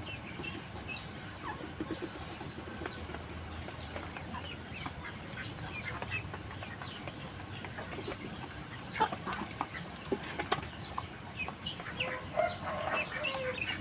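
Backyard chickens clucking, with many short scattered calls from the flock of chickens and Muscovy ducks, louder and busier in the last few seconds.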